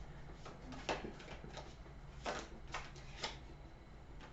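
Tarot cards being handled: four faint, short clicks and swishes as cards are shifted and laid down, over a low room hum.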